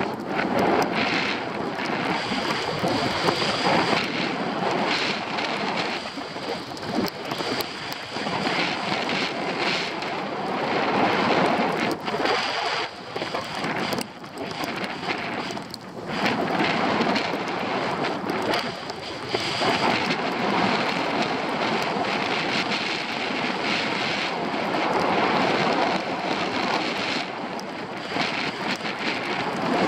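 Wind rushing over the microphone of a camera moving fast downhill on a ski slope, mixed with the hiss and scrape of snow under the rider, swelling and easing in loudness.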